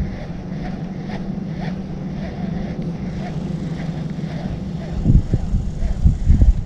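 A boat motor running with a steady low hum. About five seconds in, gusts of wind start buffeting the microphone.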